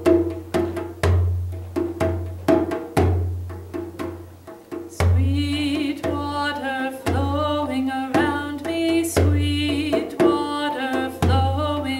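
Hand-played djembe in a steady rhythm of deep bass strokes and sharper tone strokes. About five seconds in, a woman's voice starts singing over the drumming.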